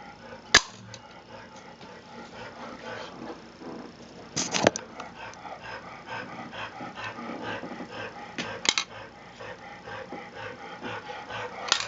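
M47 spring pump-action airsoft shotgun being pumped and fired: sharp snaps a few seconds apart, four in all, the second a quick cluster of clicks.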